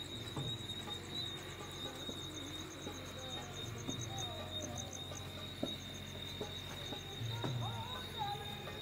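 Night insects trilling: one steady high trill and a faster pulsing chirp above it. Faint voices and music sit underneath.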